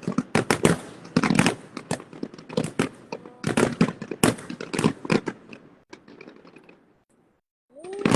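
Fireworks bursting in rapid succession: many sharp bangs and crackles for about six seconds, thinning out and stopping briefly, then a fresh volley of bangs near the end.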